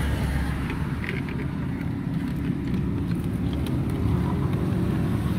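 Road traffic passing, a steady low rumble of engines and tyres.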